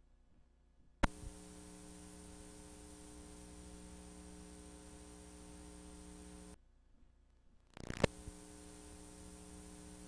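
Electrical buzz and hiss on the audio track of a VHS tape past the end of the recording. It starts with a click about a second in, drops out for a moment past the middle, and comes back with a crackle near the end.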